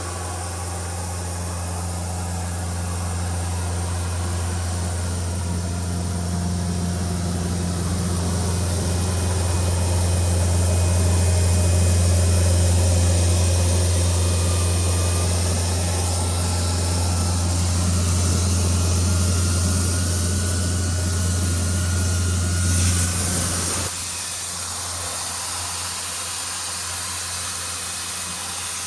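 Doosan 7/41-N mobile compressor running on its four-cylinder Yanmar 4NTV88 diesel, a steady low engine note that swells a little over the first dozen seconds. Near the end a rising whine and a burst of hissing air come in, then the engine note drops away and the level falls, leaving the hiss of air being released.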